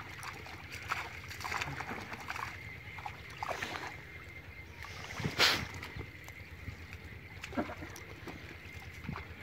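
Water splashing and sloshing with many small irregular splashes over a steady low rumble, and one sharp, much louder sound about five and a half seconds in.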